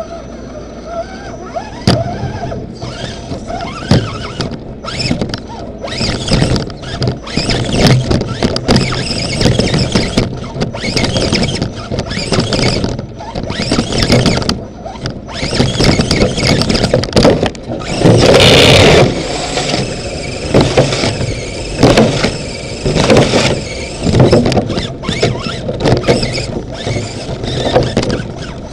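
RC crawler's electric motor and gear drivetrain whining and squealing in repeated stop-start bursts of throttle, heard from inside the body shell, with knocks and rattles mixed in. The loudest burst comes about two-thirds of the way through.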